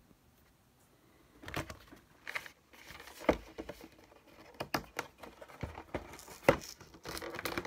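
A cardboard trading-card collection box being handled on a table: scattered knocks and taps with light rustling, starting after a quiet first second or so, the sharpest knocks about three and six and a half seconds in.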